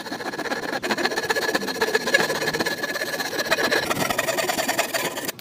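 An electric woodworking power tool running with a steady high whine and a dense rattle, cutting in and stopping abruptly.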